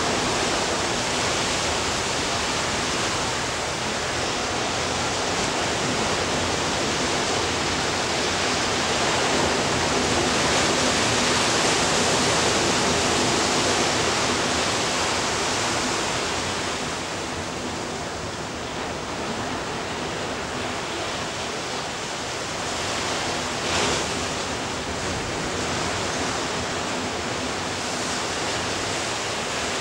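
Ocean surf breaking and washing on a sandy beach: a steady rush of noise that slowly swells and eases, strongest near the middle. One short sharp click about three-quarters of the way through.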